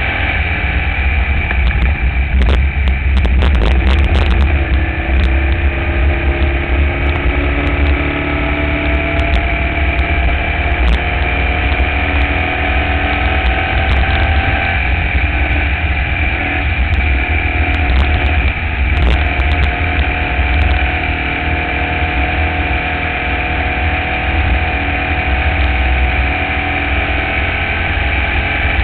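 Onboard sound of a Formula Vee's air-cooled Volkswagen flat-four engine running under racing load. Its pitch climbs slowly for several seconds and drops about halfway through, over a heavy low rumble of wind on the car-mounted microphone.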